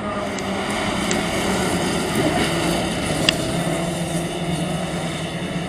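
A pack of small hatchback racing cars on a dirt track, their engines running together at speed in a steady drone, with one sharp click about three seconds in.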